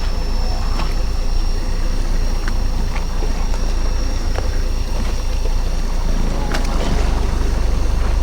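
Steady low rumble of a fishing boat at sea with its engine running, with a few small scattered clicks.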